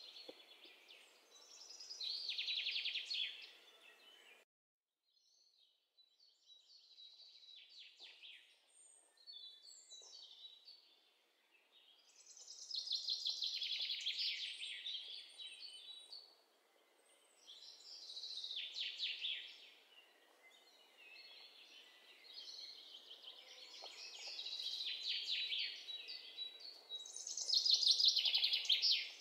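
Silicone spatula scraping and spreading melted chocolate around silicone cupcake liners and a bowl: repeated squeaky, scratchy strokes lasting a few seconds each, with a brief drop-out about four seconds in.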